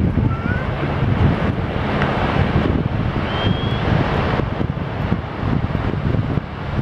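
Wind buffeting the microphone, a fluctuating low rumble with surf washing behind it. Two brief faint whistle-like rising tones come through, about half a second in and just past three seconds.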